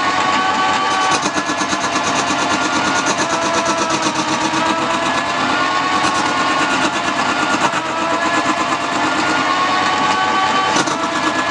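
Wood lathe running, with a turning tool cutting the spinning wood: a steady motor whine that wavers slightly in pitch over a fast, fine chatter.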